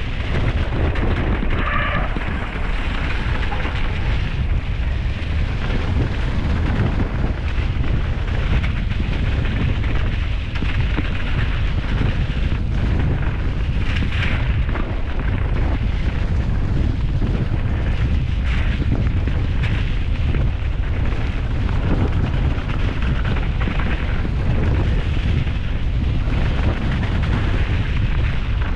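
Strong wind buffeting an action camera's microphone as a continuous deep rumble, mixed with the rattles and knocks of a mountain bike riding fast over rough trail.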